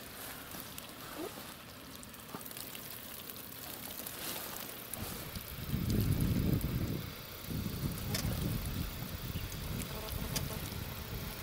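Small fish being shaken out of a mesh fish trap into a metal bucket, with light scattered taps and rustling of the net. A low rumble swells about six seconds in and carries on more weakly.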